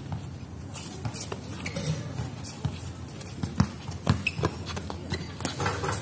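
A basketball bouncing on a hard outdoor court amid players' shuffling footsteps, with a few sharp bounces, the loudest about three and a half and four seconds in.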